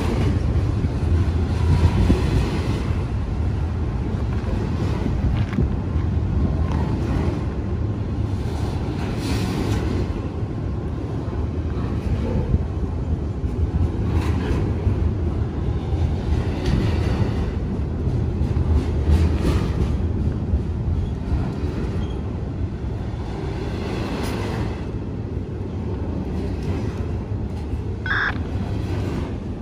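A train rolling past: a steady low rumble of wheels and cars on the rails, with recurring clatters every few seconds. A brief high squeal comes near the end.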